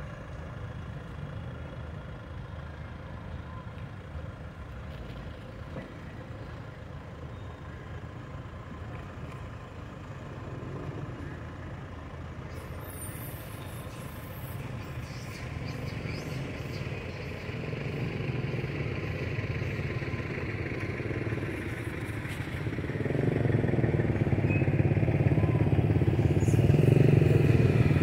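Motor vehicle engine running steadily with a low hum, growing clearly louder over the last several seconds.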